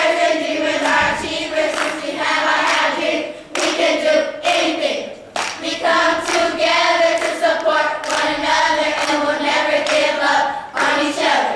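Children's choir singing together, in phrases with brief breaks between them.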